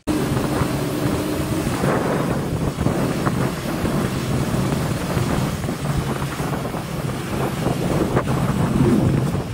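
Motorcycle tricycle's engine running at road speed, heard from inside the sidecar, with wind noise on the microphone. A steady drone and the sound of air are heard throughout.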